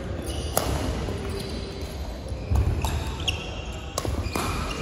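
Badminton hall play: sharp racket hits on shuttlecocks a second or two apart, with rubber-soled court shoes squeaking and feet thumping on the wooden court floor.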